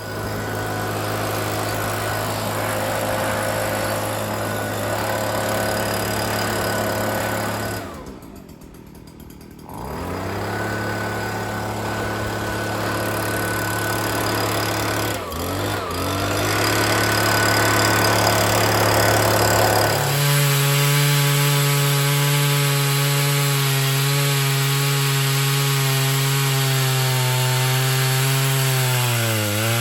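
Chainsaw on an Alaskan chainsaw mill running steadily while ripping boards lengthwise from a poplar log. About eight seconds in it drops away for a couple of seconds and then revs back up. From about twenty seconds it runs louder and a little higher in pitch, and its pitch dips briefly near the end.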